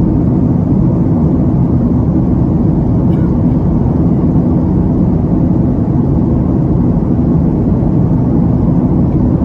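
Steady, loud jet airliner cabin noise in flight: an even, unbroken rumble heard from a window seat over the wing.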